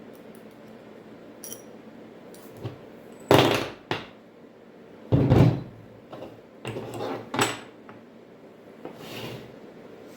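Several heavy metal clunks and scrapes, as of steel parts being handled and set down, the two loudest about three and five seconds in, with smaller knocks between and after.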